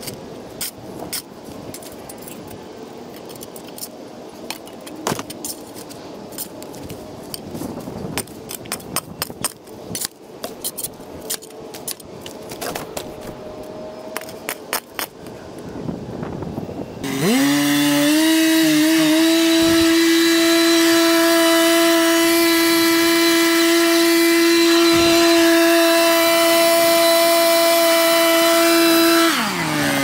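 Scattered clicks, rattles and scraping for a while. Then a small gasoline engine revs up to full throttle, runs steady, and winds down near the end.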